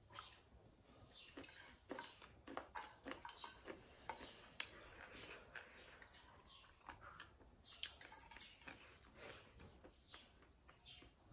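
Eating sounds: chewing with irregular small mouth clicks and smacks, and a metal fork now and then tapping and scraping a plate.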